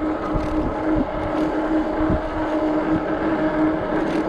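Ecotric 48V fat-tire e-bike riding at a steady speed: a constant whine from the bike, with low irregular rumbling thumps underneath.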